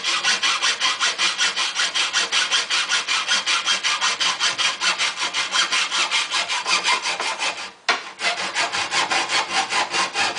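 Hand hacksaw cutting an aluminium L-bracket clamped in a vise: rapid, even back-and-forth rasping strokes, about four a second, with one short break about eight seconds in.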